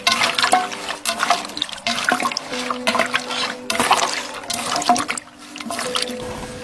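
Hands kneading and turning raw chicken pieces in marinade in a large bowl: wet squelching and slapping in irregular bursts.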